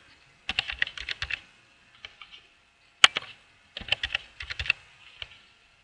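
Computer keyboard being typed on in short bursts of keystrokes, with one sharper, louder click about three seconds in.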